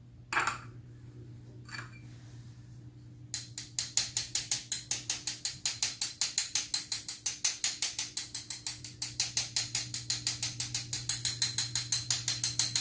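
A metal spoon worked against a small wire-mesh sieve to sift icing sugar, a fast, even run of scratchy ticks at about seven a second that starts about three seconds in. A couple of soft knocks come before it.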